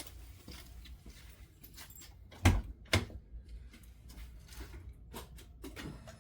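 A few short knocks and clicks of handling, the two loudest about half a second apart midway, then several lighter clicks near the end.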